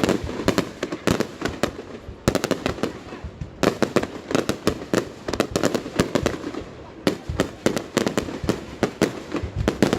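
Fireworks display going off: many sharp bangs and crackles in quick, irregular succession.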